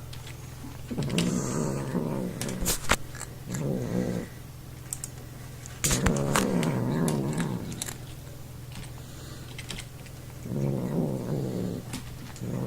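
Cat growling in about five low, drawn-out grumbles, each lasting up to a second or so: its protest at being poked while it eats. Short sharp clicks of it chewing its food fall between the growls.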